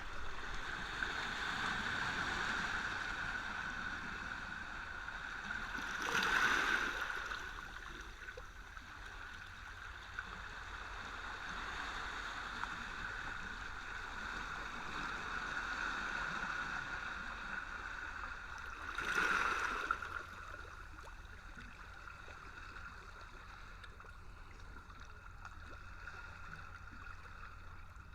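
Small waves lapping and bubbling as a steady watery wash. It swells louder twice, once about a quarter of the way in and again about two-thirds through.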